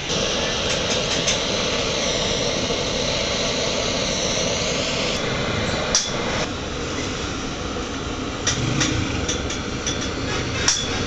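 Steady roar of a blowtorch flame heating a soldering iron's bit, with a few sharp taps later on.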